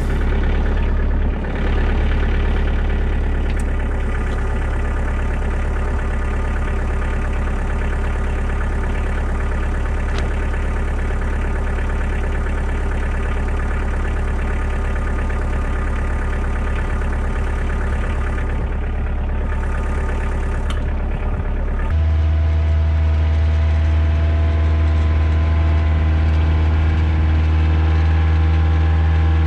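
Kioti DK40se tractor's diesel engine running steadily at low speed. About 22 seconds in, its speed steps up and it runs higher and louder.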